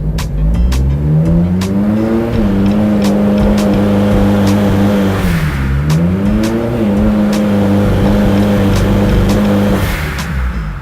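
Turbocharged Honda S2000 four-cylinder engine on a chassis dyno, revving up under load and held there, dipping once about halfway and climbing back. Irregular pops run through the engine note, the sign of an ignition misfire under load, which the shop puts down to spark being blown out at high cylinder pressure.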